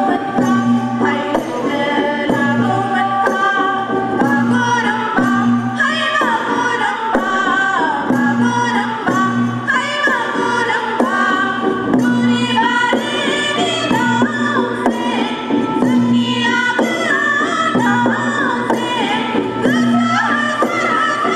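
Bodo Bagurumba folk dance music: a winding, pitch-bending melody over a steady percussion beat.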